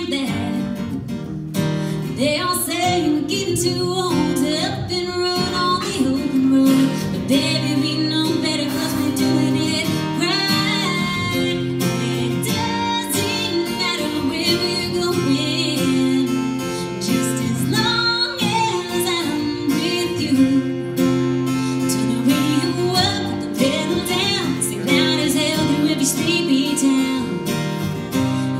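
A woman singing a song live, accompanied by two acoustic guitars.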